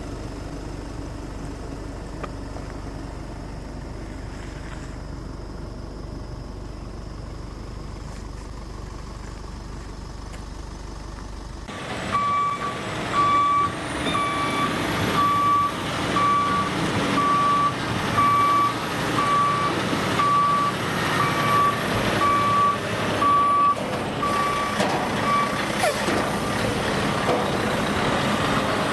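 For the first part, a steady low engine drone. Then a diesel semi-truck hauling a shipping container on a Hammar side-lift trailer backs up with its engine running, and its reversing alarm beeps about once a second. The beeping stops shortly before a brief hiss near the end.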